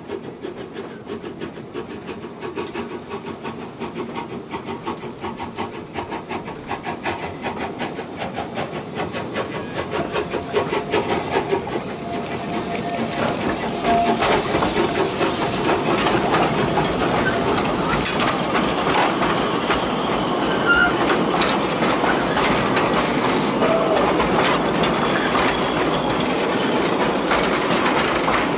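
Narrow-gauge Brigadelok steam tank locomotive running toward the listener and passing close by, its rhythmic exhaust beats growing steadily louder. There is a hiss of steam as the engine goes by about halfway through. After that, the wooden open wagons rattle past with clicking wheels.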